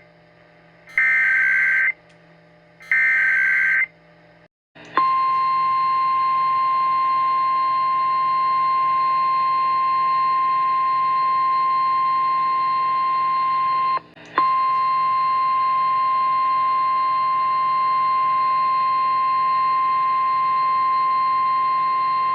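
Two NOAA Weather Radio SAME header data bursts, each about a second of raspy, warbling digital tones, two seconds apart. About a second after the second burst, the steady 1050 Hz Weather Radio warning alarm tone starts and holds for about 18 seconds, with one brief dropout partway through. Together they announce a severe thunderstorm warning.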